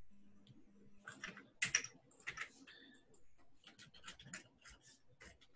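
Computer keyboard typing, faint, in irregular runs of keystrokes with short pauses between them.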